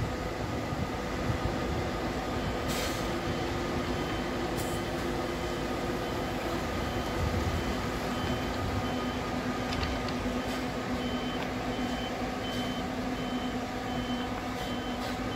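Neoplan Tourliner coach reversing: its diesel engine runs steadily while the reverse warning alarm beeps evenly, about one and a half beeps a second, starting about two and a half seconds in. Two short hisses of air come about three and five seconds in.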